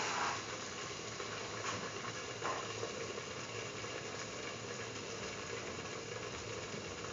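Thick chickpea and coconut paste bubbling and sizzling in hot oil in a pan as it heats through: a steady hiss with a few faint pops.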